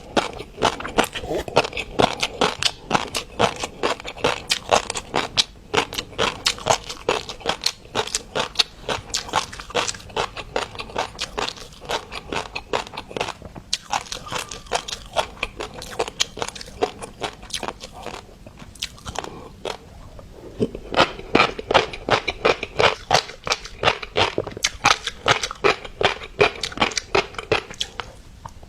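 Close-miked chewing of mixed-colour fish roe, the eggs popping in rapid, dense crackly clicks, with a short pause about two-thirds through.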